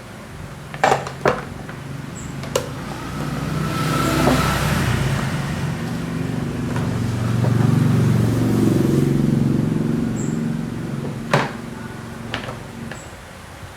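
A motor vehicle's engine swelling up and fading away as it passes, with a few sharp clicks before and after it.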